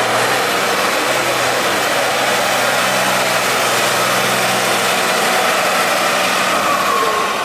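Tatra 813 eight-wheel-drive trial truck's diesel engine running loud at steady high revs, easing off near the end.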